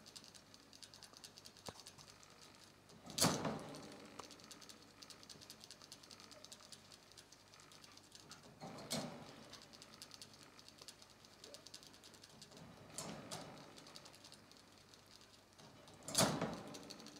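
Rabbit drinking from a gravity water bottle on its wire cage: faint rapid clicking of the drinking spout, with four louder short bursts a few seconds apart.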